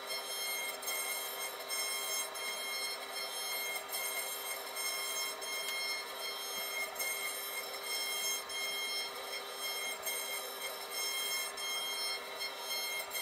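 CNC router spindle running with a steady high-pitched whine while a thin tapered carving bit cuts into a wooden board, with a rough hiss from the cut.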